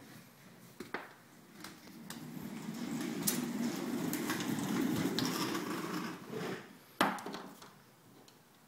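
Small wheels of a toy doll stroller rolling over a hardwood floor: a rough rumble that builds over a few seconds, with a few light knocks along the way. A sharp knock about seven seconds in is the loudest sound.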